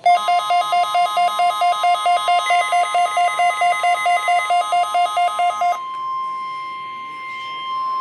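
NOAA Weather Radio warning alarm tone, a steady high tone, sounds through a Midland weather alert radio's speaker as part of a Required Weekly Test. For the first two-thirds it is overlaid by the radio's own alert beeping, about five rapid beeps a second, which then stops and leaves the steady tone alone.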